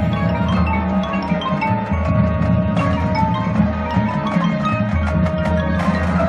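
High school marching band music: quick runs of mallet percussion notes, marimba-like, over held low notes.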